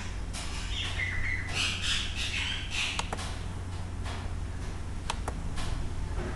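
A few sharp computer mouse clicks as on-screen buttons are pressed, over a steady low hum. About one to three seconds in there is a run of high chirps.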